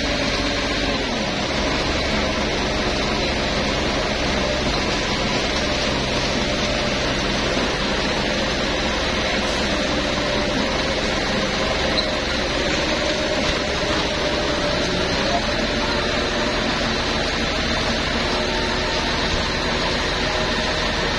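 Truck-mounted concrete pump and concrete mixer truck running together: a loud, steady noise of diesel engines and hydraulics with a constant hum, while fresh concrete is fed from the mixer's chute into the pump's hopper.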